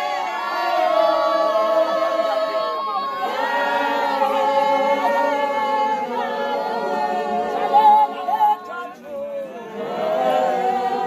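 Congregation of worshippers singing together unaccompanied, many voices holding long notes. The singing drops away briefly about three-quarters of the way through, then picks up again.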